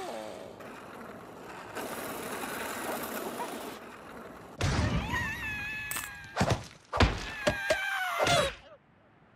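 Cartoon sound effects of a character falling into a canyon: a rushing whoosh, then a long wavering cry over a series of heavy thuds and crashes that cut off suddenly near the end.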